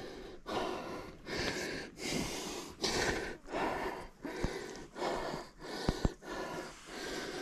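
A man panting hard close to the microphone, quick even breaths in and out, winded after fighting and landing a big catfish.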